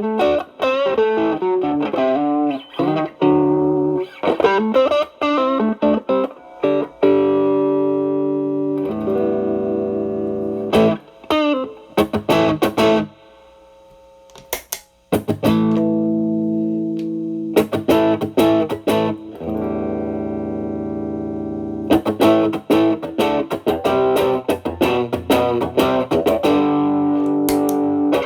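Stratocaster electric guitar played through an Xotic BB Plus preamp, with channel A stacked into channel B for overdrive, into a Marshall Valvestate amp. It plays quick single-note licks, stops briefly about halfway, then plays held chords followed by more licks.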